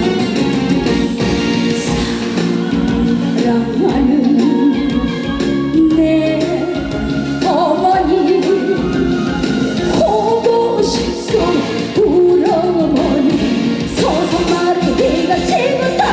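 A woman singing a Korean trot song live with a sliding, ornamented vocal line over loud amplified accompaniment with a steady beat.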